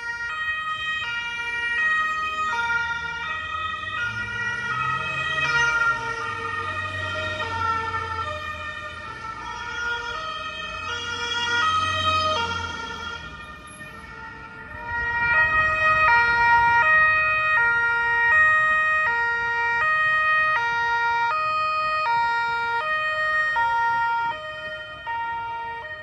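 Italian police two-tone siren, switching back and forth between a high and a low note, with road traffic rumbling underneath. The siren grows louder a little past halfway as the car comes close.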